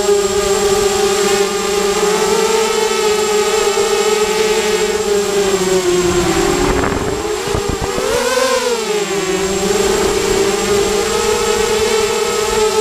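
Brushless motors and propellers of a Kvimo Spider hexacopter whining steadily in flight, heard close up from a camera on its frame. About six seconds in the pitch sags and wavers, then swings up and back down near eight and a half seconds as the motor speed changes, before settling again.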